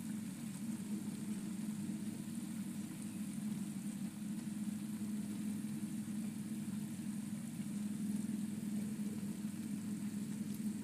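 Large pot of rice boiling on a gas stove: a steady low rumble with a faint hiss above it.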